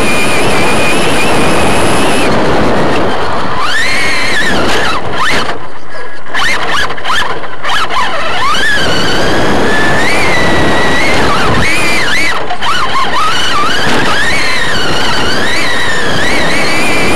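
Onboard sound of an RC short course truck racing on dirt: the electric motor and drivetrain whine climbs and drops in pitch over and over with the throttle, over a steady rush of noise from the tyres and wind. About six seconds in, the low rush thins out briefly.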